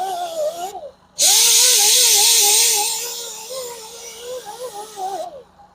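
A grinder fitted with a red surface-conditioning disc whining with a strong hiss as it works the curb-rashed alloy wheel rim, its pitch wavering as it is pressed on. It cuts out briefly about a second in, runs again, then spins down with falling pitch near the end.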